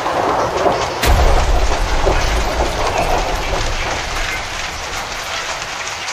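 Steady rain falling, a continuous hiss, with a low rumble that swells about a second in and fades over the next few seconds.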